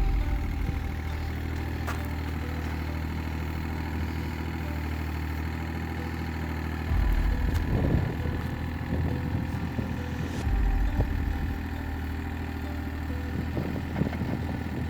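Excavator's engine running steadily while it digs, swelling briefly louder twice, about seven and ten and a half seconds in.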